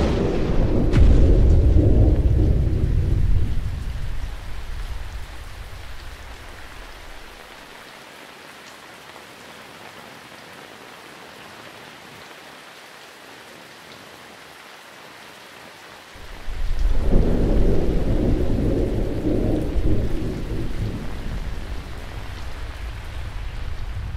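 Heavy rain falling steadily, with two long low rolls of thunder: one at the start that fades away over several seconds, and another that breaks in suddenly about two-thirds of the way through and slowly eases.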